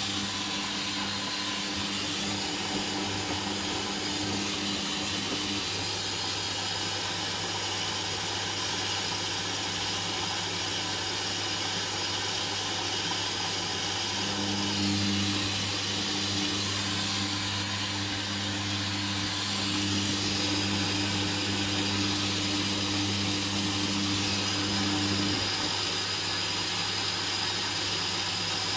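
Hoover Dynamic washing machine during its first rinse: a steady hiss with the drum motor humming, which stops after about five seconds and comes back from about halfway to near the end.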